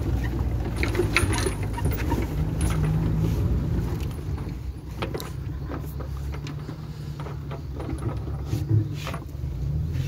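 Small motor vehicle's engine running steadily while it travels over rough ground, with the metal body rattling and knocking now and then.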